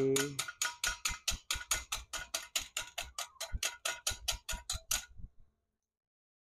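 Welding chipping hammer tapping rapidly on the steel toothed sector of a car power-window regulator, knocking slag off freshly welded teeth. It makes about five sharp metallic taps a second and stops abruptly about five seconds in.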